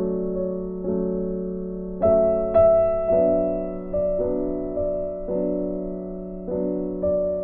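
Background music: slow keyboard chords, a new chord struck about once a second and left to ring down.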